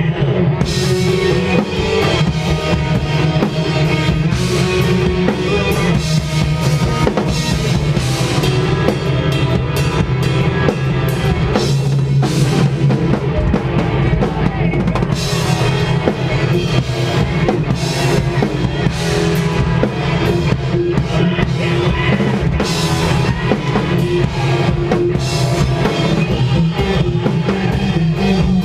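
A post-hardcore band playing a loud song live, with the drum kit's bass drum and snare to the fore in a dense, unbroken wall of band sound.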